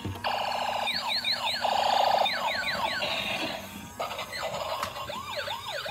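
Bump-and-go transforming police car toy playing electronic sound effects through its small built-in speaker as it changes into a robot. Buzzy mechanical-sounding blocks alternate with quick falling zaps, then a fast wailing siren starts about five seconds in.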